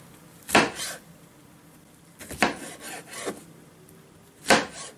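Kitchen knife slicing saffron milk cap mushrooms on a cutting board: several separate rasping cuts, each the blade going through the firm cap and scraping the board, a second or so apart.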